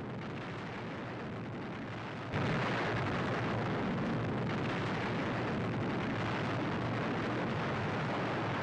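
Explosions heard as a continuous rumbling roar with no separate blasts standing out, stepping up louder about two seconds in and then holding steady.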